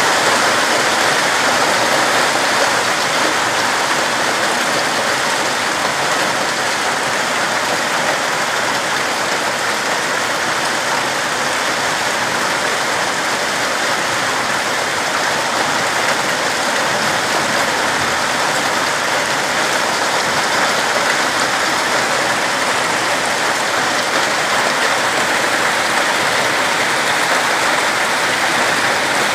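Heavy rain mixed with hail falling steadily, an even dense hiss that holds at the same level throughout.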